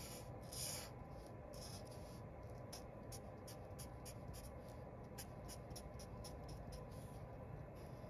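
Felt-tip marker drawn across paper, faint: one longer stroke near the start, then a run of short, quick strokes.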